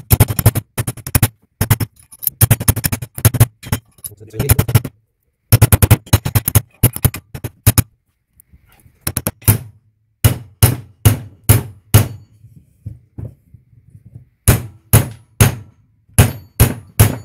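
Hammer blows driving a heated new steering head bearing down onto a chilled triple clamp stem, struck through the old bearing parts because it will not drop on by itself. Quick runs of sharp blows for about the first eight seconds, then single blows about two a second, with a short pause in between.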